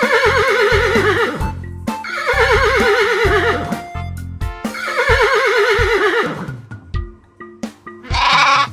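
Horse whinny sound effect: three neighs, each quavering and falling in pitch, over children's background music with a light beat.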